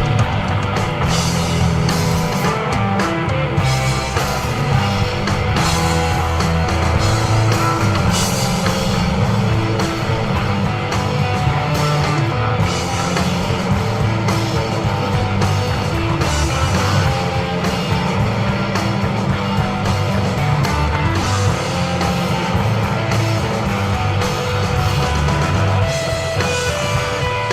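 Live instrumental desert rock from a trio: electric guitar, bass guitar and drum kit playing together, with a sustained bass line under steady drums and cymbals.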